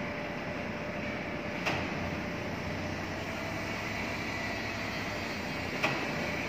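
Truck-mounted crane's engine running steadily while it holds a steel truss on its slings. Two brief sharp knocks sound, one a little under two seconds in and one near the end.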